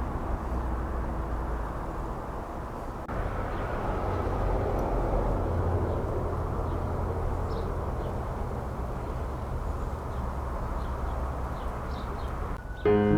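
Strong wind blowing across the microphone: a steady, low rushing rumble with no distinct events, changing abruptly about three seconds in.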